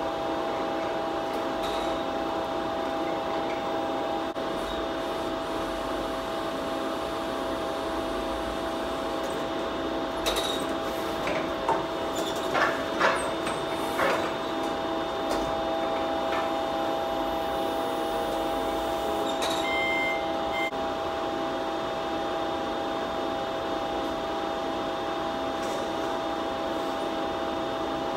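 Steady hum of running workshop machinery, several steady tones over a drone, with a few short metallic knocks and clanks around the middle and a brief high beep about two-thirds of the way in.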